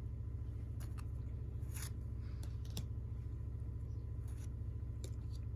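Low steady electrical hum, with a few faint clicks and rustles of trading cards being handled.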